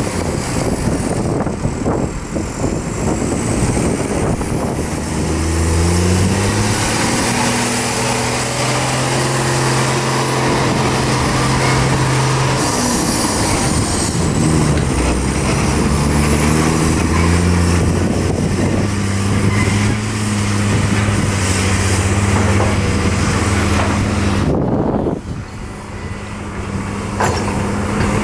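Hyundai hydraulic excavator's diesel engine working in mud, revving up under load, holding high, and dropping back several times, with a brief sharp drop near the end. A faint high whine slowly rises and falls over the steady machine noise.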